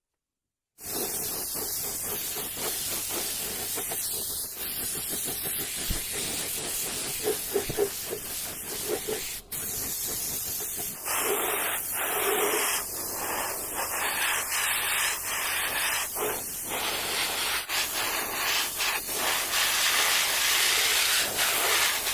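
Loud, steady hissing spray that starts abruptly and cuts off abruptly, with a few knocks in the middle.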